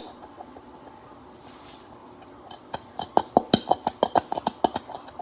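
A utensil clinking and tapping against a mixing bowl in a quick run of clicks, about five a second, starting a little under three seconds in.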